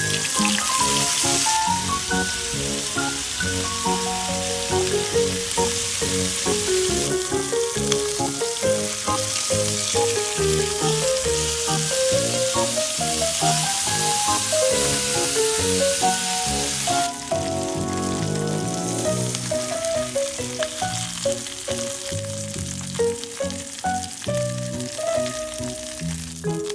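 Food frying in a hot pan, a steady sizzle that dies down noticeably about two-thirds of the way through, under background music.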